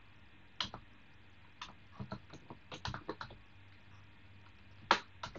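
Computer keyboard keystrokes clicking in short irregular runs with pauses between them, the loudest a single sharp key strike near the end.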